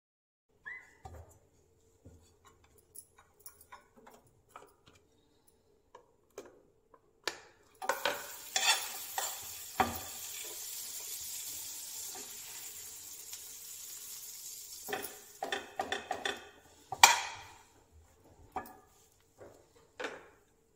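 Bread slices sizzling in melted fat in a steel frying pan, with a spoon scraping and tapping the pan as the slices are turned. The sizzle swells about eight seconds in and fades near seventeen seconds, where a sharp metal clank is the loudest sound.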